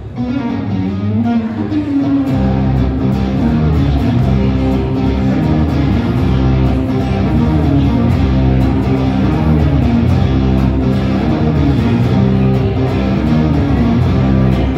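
Solo acoustic guitar playing an instrumental passage with no singing, picked and strummed notes moving over a steady low pattern; deeper bass notes come in about two seconds in.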